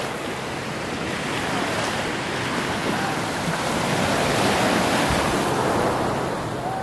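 Small waves washing onto a sandy beach at the water's edge, a steady rush that swells louder about four seconds in.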